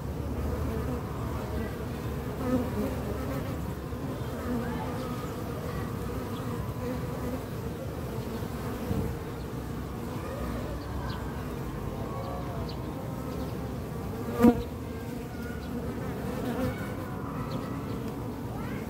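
A colony of western honey bees (Apis mellifera) humming steadily over an open hive box full of frames. One sharp tap comes about three-quarters of the way through, the loudest moment.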